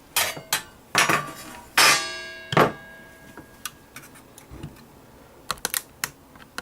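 DVR cover being handled and set down: a series of hard knocks and clatter in the first few seconds, one of them ringing on briefly, followed by lighter scattered clicks.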